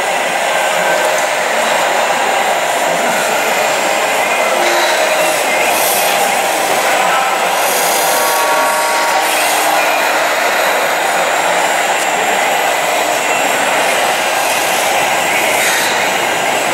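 Steady whirring hiss of an RC scale hydraulic excavator's hydraulic pump running as the machine works its boom and bucket, with a rattle of black granules pouring from the bucket about halfway through.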